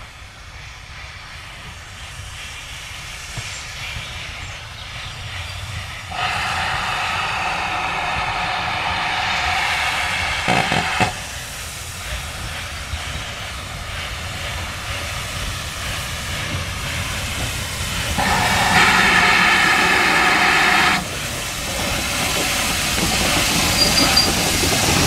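Steam locomotive hissing and growing steadily louder, broken by two loud bursts of escaping steam that start and stop sharply: one of about five seconds a quarter of the way in, and one of about three seconds some three quarters through. A short clank comes at the end of the first burst.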